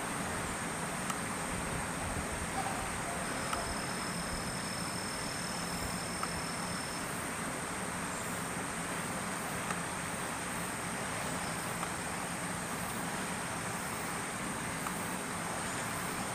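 Steady outdoor background noise: an even hiss over a low hum, with a thin high whine throughout and a few faint ticks.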